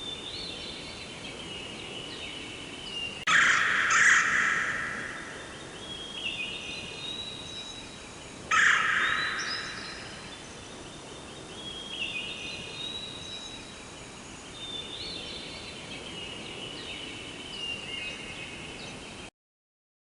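Forest ambience of birds chirping and whistling on high notes, with two loud, harsh calls: one about three seconds in lasting nearly two seconds, a shorter one a few seconds later. The sound cuts off just before the end.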